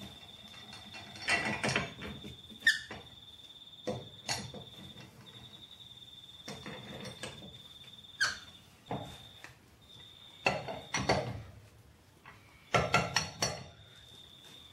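A wrench clinking and knocking against a car's wheel nuts and wheel as the nuts are worked by hand: irregular metallic clanks and taps.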